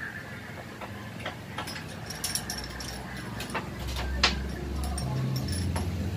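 Scattered light clicks and taps of metal parts and tools being handled on a workbench, with one sharper tap about four seconds in. A low rumble comes up in the last couple of seconds.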